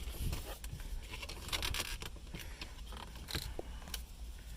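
Scattered clicks and scraping of hard plastic and metal as a 2003 Mercedes-Benz SL500's radio head unit is gripped and worked loose from its dashboard slot.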